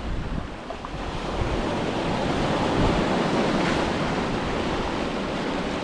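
Ocean surf, a wave breaking and washing up the shore, the rush of water swelling about two seconds in and then easing. Wind rumbles on the microphone.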